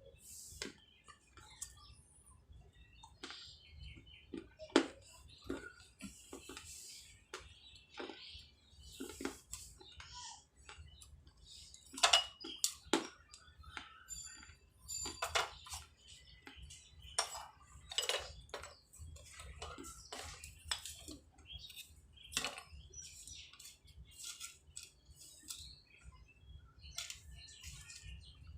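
Baked clay pottery being bitten and chewed: irregular sharp crunches and cracks, with a few louder snaps among them.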